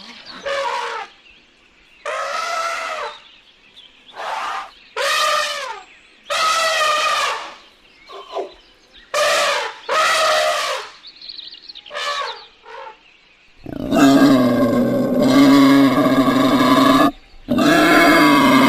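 Animal calls: a run of short, separate calls, each rising and falling in pitch. About three-quarters of the way in they give way to a louder, continuous call that breaks off once briefly.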